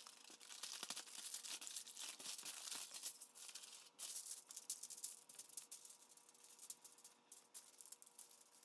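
Aluminium foil crinkling and rustling faintly in irregular short strokes as it is lifted and pressed to roll a ground-meat log.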